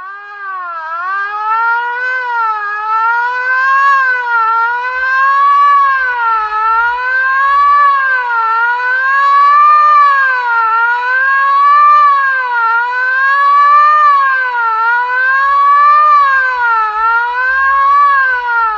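Loud warning siren wailing, its pitch rising and falling in a steady cycle about once every two seconds.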